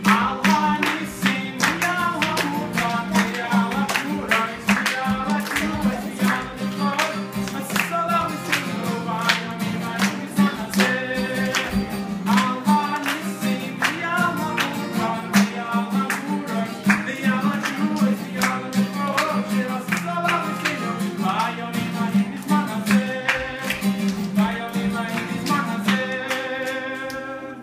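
A man singing a Chanukah song to his own strummed acoustic guitar, with the audience clapping along to the beat. The song ends about a second before the close.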